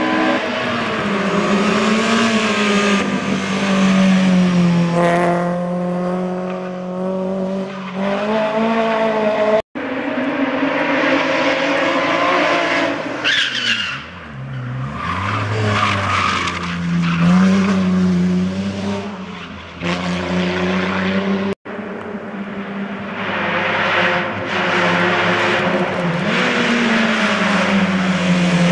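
Hillclimb race cars, among them an Opel Corsa B, accelerating hard up the course: engines revving high, the pitch climbing and then dropping back at each gear change, with a brief tyre squeal midway. The sound is cut twice, as separate runs are joined.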